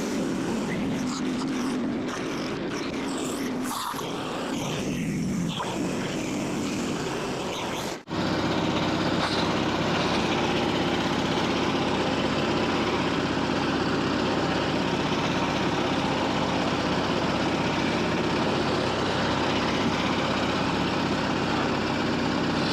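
Portable band sawmill's petrol engine running, in two edited stretches. It wavers in the first part, and after a sudden cut about eight seconds in it runs steady.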